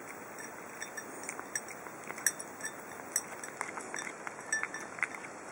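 A cat eating tuna from a small ceramic plate: irregular small clicks and clinks of chewing and of its teeth and tongue touching the plate, over a faint steady hiss.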